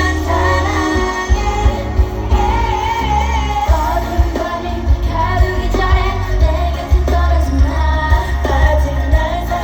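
Loud amplified K-pop music: a female voice singing with vibrato over a heavy, pulsing bass beat.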